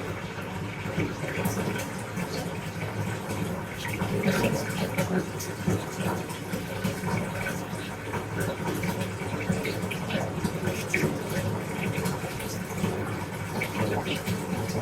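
Water running from a tap into a bathtub: a steady rush with small splashes and crackles.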